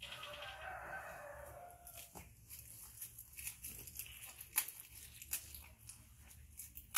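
A rooster crows once, a rough call lasting about two seconds that sinks slightly in pitch at its end. After it come scattered crinkling and tearing clicks of packaging as small drink cartons are unwrapped and handled.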